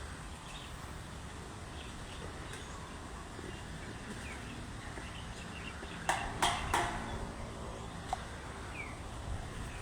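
Steady low rumble of wind with a few faint bird chirps. About six seconds in come three sharp, short sounds in quick succession.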